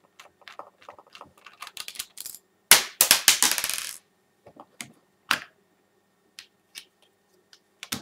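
Small clicks from handling the plastic case of a Fluke 115 multimeter while its one battery-door screw is undone and the door is lifted off. About three seconds in comes a quick run of rattling clicks that lasts a little over a second and is the loudest part, with a few scattered clicks after it.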